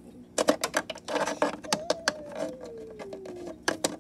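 Plastic toy pet figure tapped and hopped across a plastic dollhouse floor: a quick run of sharp clicks and taps, then two more clicks near the end.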